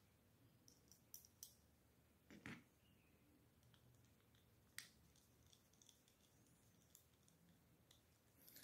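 Near silence with a few faint clicks and ticks of a small screwdriver turning tiny screws into an air-rifle magazine's modification plate, the clearest about two and a half and five seconds in.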